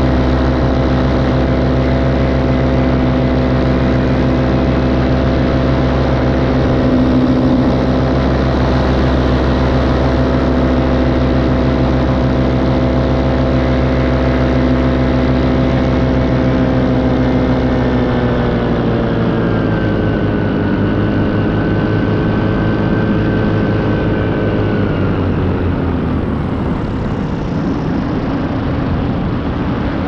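A small aircraft's engine and propeller droning steadily in flight. About two-thirds of the way through the engine is throttled back, its pitch falling in two steps.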